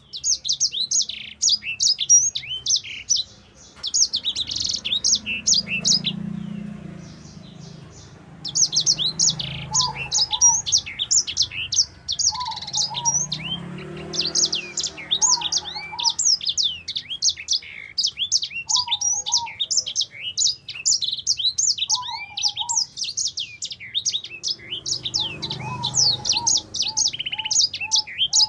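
A caged sanger songbird singing in fast, near-continuous runs of high chirps and trills, broken by short pauses about 3 and 7 seconds in. A lower two-part call repeats every few seconds underneath from about 10 seconds on.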